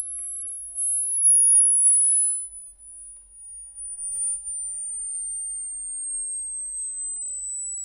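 Hearing-test sine tone: a single very high, thin whistle falling slowly and steadily in pitch, a descending frequency sweep for finding the upper limit of hearing. A faint click about four seconds in.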